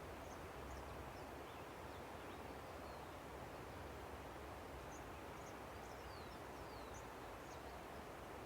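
Steady rushing of a river, with small birds calling faintly over it in short high chirps and quick falling whistles.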